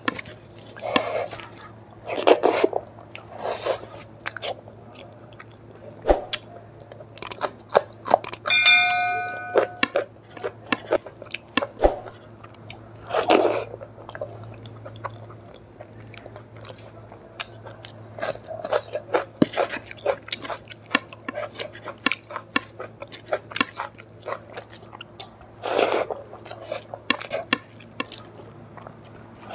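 Eating sounds: fingers squishing rice mixed with dal and saag on a plate, and chewing, in repeated short wet bursts and clicks. A brief metallic ring about nine seconds in.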